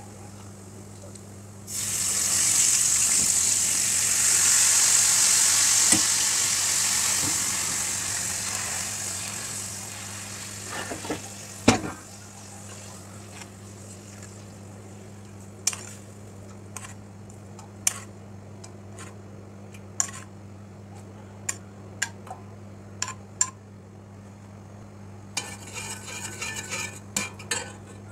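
Vinegar hitting hot oil and fried garlic in a small pan: a sudden loud sizzle about two seconds in that slowly dies away over several seconds. After it come single clinks of a metal spoon on the pans, and near the end the spoon scraping round a steel pot as tomato sauce is stirred.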